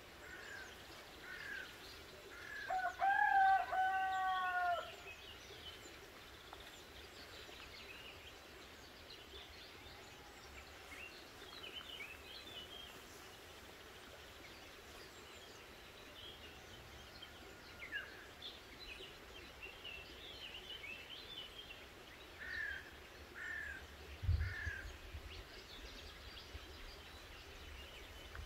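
A rooster crows once, a long call a few seconds in, over scattered small birds chirping. A few short calls and a soft low bump come near the end.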